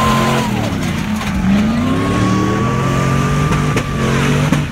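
A 4x4 pickup truck's engine revving as it drives into a mud pit, its pitch rising about a second and a half in, with a steady high whine above the engine.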